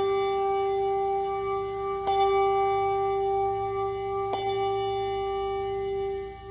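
A single church bell tolling at a slow, even pace. It is struck again about two seconds in and once more about four seconds in, and each stroke rings on into the next at the same pitch.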